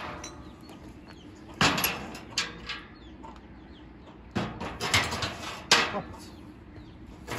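Thin steel rods knocking and clanking together as they are handled, in two bursts of several sharp knocks: one starting about one and a half seconds in, another about four and a half seconds in.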